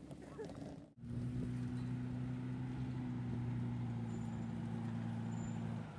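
Four-wheel-drive truck engine running at a steady, unchanging pitch as a low drone. The sound drops out briefly about a second in, and the note changes just before the end.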